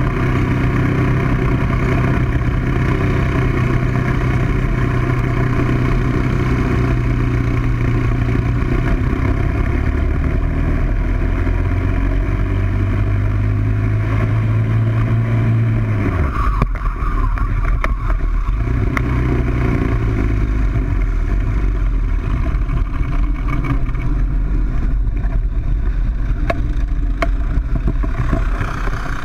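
Onboard sound of a racing kart's Briggs & Stratton World Formula single-cylinder four-stroke engine at high revs, a steady engine note under wind noise. About 16 seconds in the steady note breaks off abruptly, leaving rougher, noisier kart and wind sound.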